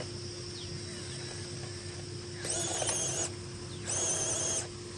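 An animal calling twice, each call a wavering cry under a second long, the two a little over a second apart, over a faint steady hum.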